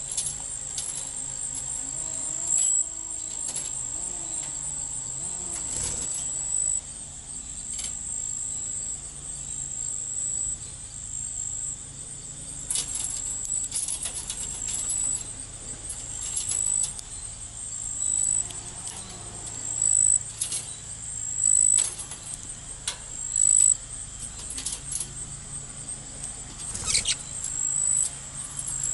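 Budgerigars moving about, with frequent small clicks, taps and scratches, over a steady high-pitched trill that brightens into short chirps every second or two.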